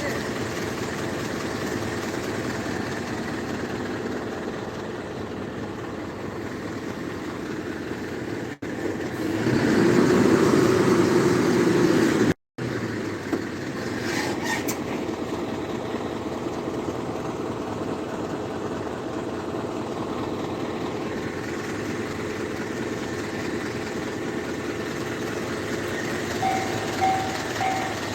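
Train running along the line at a railway level crossing, swelling louder for about three seconds in the middle, then cutting out abruptly for a moment. Near the end a level-crossing warning bell starts ringing, about two rings a second.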